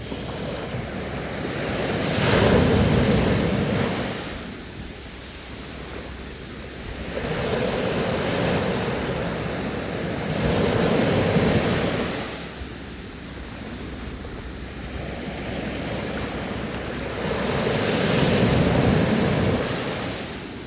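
Ocean waves breaking and washing onto the shore, swelling loud three times and ebbing between, roughly every seven to eight seconds.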